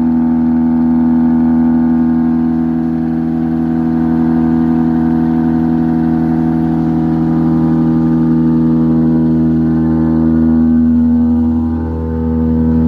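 Septic vacuum truck running steadily, its engine and vacuum pump holding one constant pitch, with a brief dip in loudness near the end.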